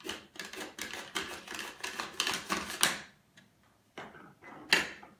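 Radish slid back and forth across a mandoline slicer's blade: a quick run of sharp clicking strokes, about five a second, for some three seconds, then a pause and one louder stroke near the end.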